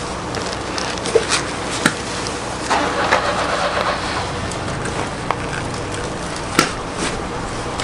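Camping gear being packed away: a few sharp clicks and knocks and a short rustle of handling, the sharpest knock near the end, over a steady low background rumble.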